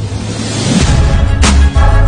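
Background music: a heavy bass line comes in about a second in, with a sharp percussive hit about a second and a half in.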